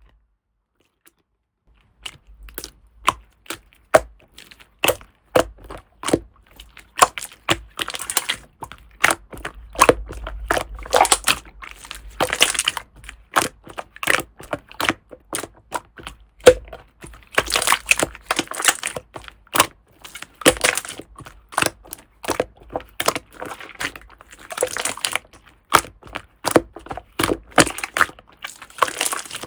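Hands squeezing and poking slime, making a dense run of sharp clicks and crackles that starts about two seconds in.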